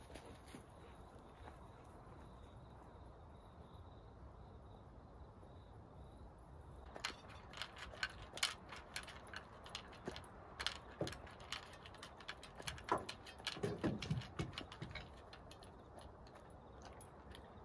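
Quiet outdoor ambience with a faint steady high tone. From about seven seconds in comes a run of irregular light clicks and small rattles.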